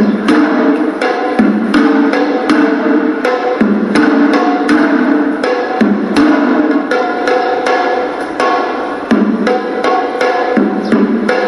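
Hewisi, traditional Sri Lankan temple music: a horanawa shawm plays a melody of short held notes over fast, dense drum strokes.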